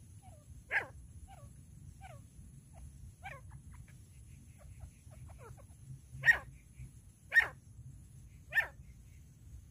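Female grey francolin calling: four loud, sharp calls, one about a second in and three about a second apart near the end, with softer short falling chirps between them.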